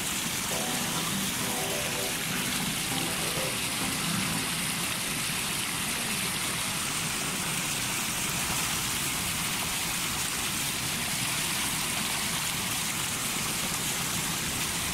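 Steady rushing noise of running water, constant throughout.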